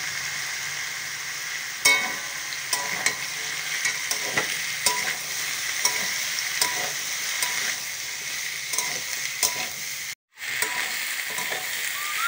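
Beetroot and carrot strips frying in hot oil in an aluminium kadai, sizzling steadily, with a metal spatula scraping and clicking against the pan as they are stirred. The sound drops out briefly about ten seconds in.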